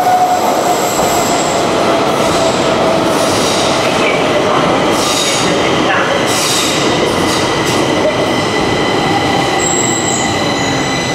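Stockholm metro train running into an underground station and slowing, a loud rush of wheels and motors with high steady tones over it and a lower tone that slowly falls in pitch as the train slows.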